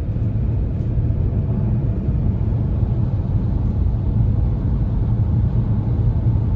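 Steady low rumble of tyre and wind noise inside the cabin of a DS3 Crossback E-Tense electric crossover at highway speed, with no engine sound under it.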